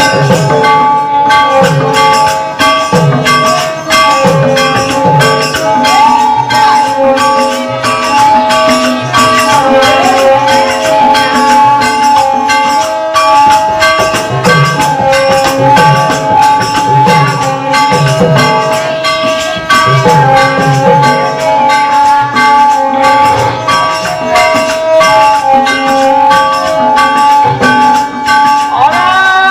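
Birha folk music: a harmonium plays a held, moving melody over regular dholak drum strokes and a continuous metallic jingling from hand-held percussion.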